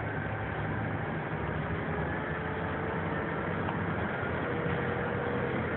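Bus engine and road noise heard from inside the cabin while driving: a steady low rumble with a faint thin whine above it.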